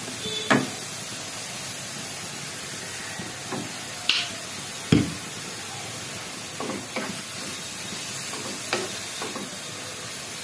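Vegetables being stir-fried in a metal wok with a wooden spatula: a steady sizzle under scattered knocks and scrapes of the spatula against the pan. The sharpest knocks come about half a second in and around four and five seconds in.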